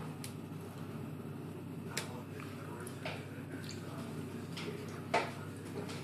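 Several separate sharp clicks and light knocks, the loudest about five seconds in, over a steady low hum.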